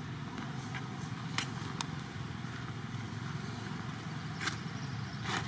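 Steady low background rumble with a few short, faint clicks scattered through it.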